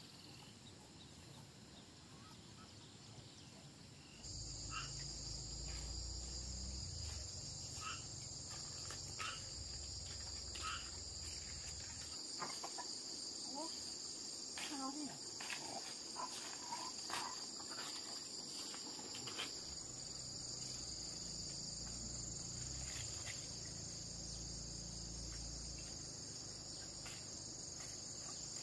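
A chorus of insects making a steady, high-pitched drone that starts abruptly about four seconds in, with scattered short chirps and a low rumble underneath at times.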